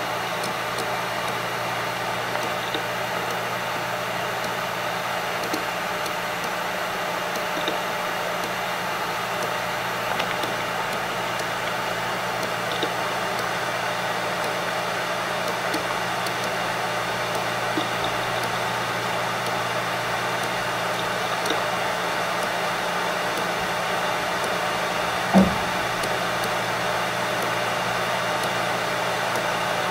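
Seagate Barracuda 7200.12 1TB hard disk drive spinning at 7200 rpm and reading: a steady whir with a low hum and faint, scattered ticks of head seeks. One louder knock comes about 25 seconds in.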